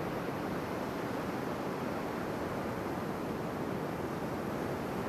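Steady rush of ocean surf at the shoreline, an even wash of noise with no single wave crash standing out.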